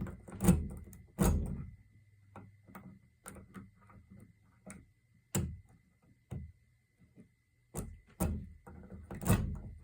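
Lock pick and tension wrench working in a Kwikset doorknob's pin-tumbler keyway: irregular small clicks, scrapes and a few louder knocks as the pick works the pins and the knob is handled.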